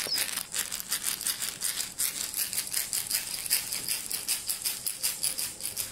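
Handheld rattle shaken in quick, even strokes: a dry, high-pitched, steady shaking.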